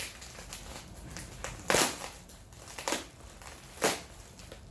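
Plastic and foam packing material rustling and crinkling as a parcel is unpacked, with three louder rustles about two, three and four seconds in.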